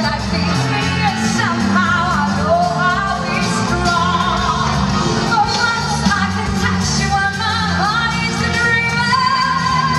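A woman singing live into a handheld microphone over band accompaniment with a steady bass line, her voice gliding and wavering between held notes.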